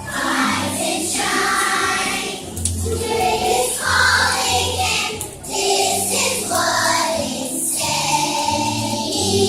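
Children's choir singing a song together, with musical accompaniment underneath.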